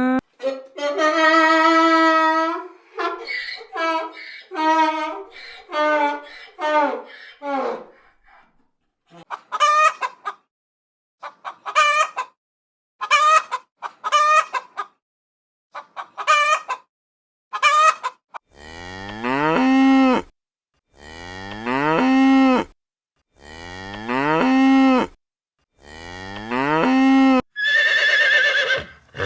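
A series of different animal calls, one kind after another: a cluster of pitched cries in the first eight seconds, short separate calls about once a second until about eighteen seconds in, then five long calls falling in pitch, about two seconds apart.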